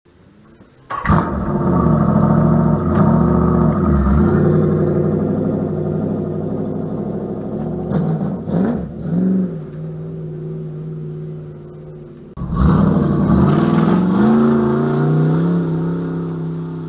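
An engine running and revving, its pitch rising and falling. It cuts in suddenly about a second in, eases off in the middle and cuts in loud again near the end.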